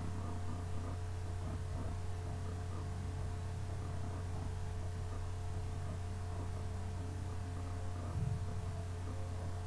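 Steady low electrical hum with two faint, higher steady tones above it, and a brief soft low sound about eight seconds in.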